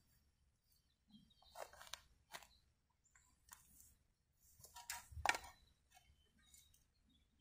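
Steel garden spade digging into soil, with short scraping crunches: a few about two seconds in and a louder cluster about five seconds in.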